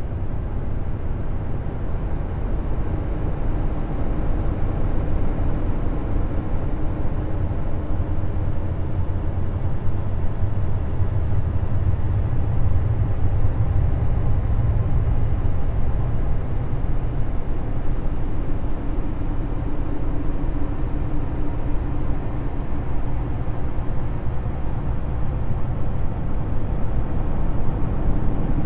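Steady low rumbling drone with a faint hum above it that fades in and out, a space-ambience track presented as the sound of Jupiter's moon Callisto.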